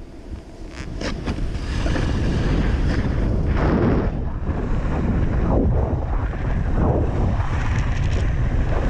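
Wind buffeting a GoPro's microphone while snowkiting across snow-covered ice, with a heavy rumble that gets louder about a second and a half in as speed builds. Hissing swooshes of the board or skis sliding over the snow come and go.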